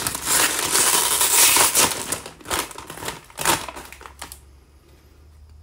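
Plastic-film potato chip bag crinkling and rustling loudly as it is handled in the hands; the crinkling stops about four seconds in.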